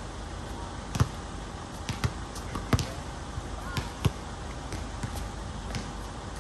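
Basketball bouncing on an outdoor hard court: about eight sharp, irregularly spaced bounces as a player dribbles, sometimes two in quick succession.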